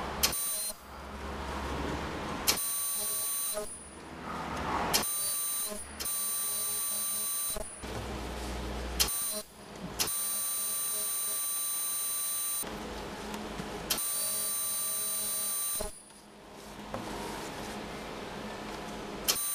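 Ultrasonic sewing machine bonding nonwoven surgical-gown fabric: it switches on and off several times, each run starting with a click and giving a steady high-pitched whine for one to three seconds.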